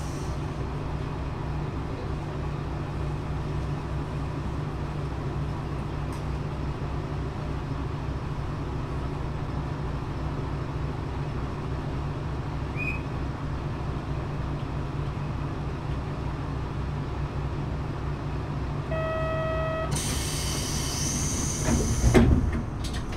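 Shimabara Railway diesel railcar idling while stopped at a station, a steady low hum. Near the end a short chime sounds, followed by about two seconds of air hiss and a thump.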